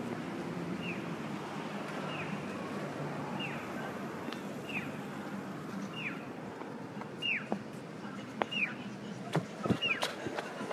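Short falling electronic chirps repeating evenly about once every 1.3 seconds, in the way of a Japanese pedestrian crossing's bird-call audible signal, over a steady low hum of street noise. A few sharp clicks come in the last few seconds.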